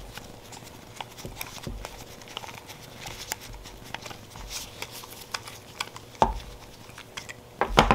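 Light metal clicks and scrapes of a flathead screwdriver unscrewing the jet from the bottom of a Baja 97cc mini bike's carburetor, with a sharper knock about six seconds in and a few sharp clicks near the end.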